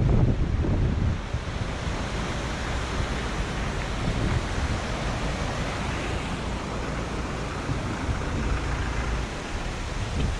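Steady rush of a river or beck in flood, with wind buffeting the microphone, the buffeting heaviest in the first second.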